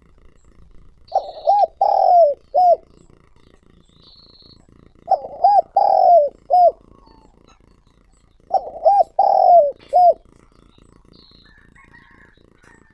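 Spotted dove cooing: three phrases about three and a half seconds apart, each of four or five low coos, the last notes of each falling away. Faint chirps of small birds lie between them.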